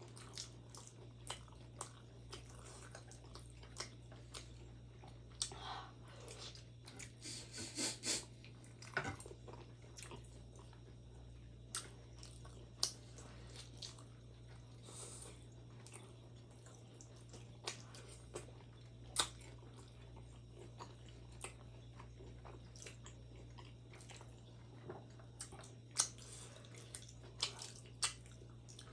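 Close-miked chewing and biting of steamed chicken momos (dumplings): wet, squishy mouth sounds with scattered sharp smacks and clicks at irregular intervals. A steady low hum lies underneath.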